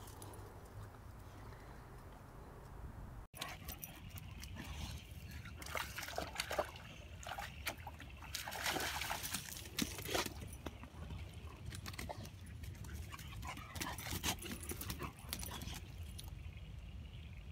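Boxer dog wading in shallow water, with irregular splashing and sloshing.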